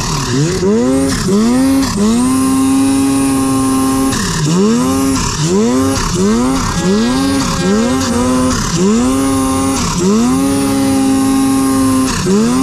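Turbocharged mountain snowmobile engine revving up and down in quick repeated throttle blips, held at a steady high pitch for a couple of seconds three times, while the sled pushes through deep powder. A hiss of snow and track runs underneath.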